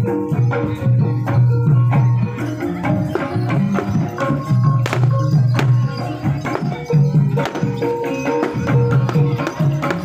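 Javanese ebeg accompaniment: a percussion ensemble of drums and tuned mallet instruments playing a steady, driving pattern with frequent sharp strokes.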